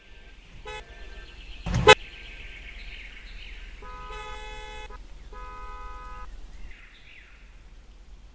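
Car horns honking: a short toot about a second in, then two longer steady honks close together in the middle. A sharp, loud knock just before the two-second mark is the loudest sound.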